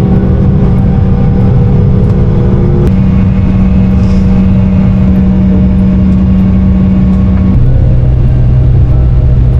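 Airliner cabin noise: the steady, loud rumble of the aircraft's engines, with a hum that drops in pitch about seven and a half seconds in.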